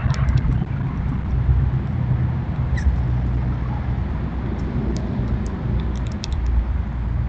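Steady low outdoor rumble, with a few short, high clicks scattered through the second half.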